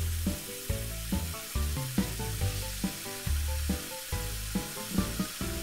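Water running from a tap into a sink, a steady hiss, over background music with short repeated notes and a bass line.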